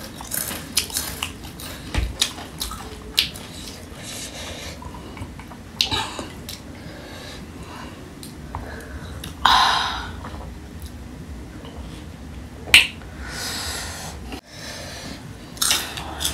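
Close-up mukbang eating sounds of panipuri and chatpate: chewing and crunching with scattered clicks of a spoon on the dishes, and a louder burst of noise about ten seconds in.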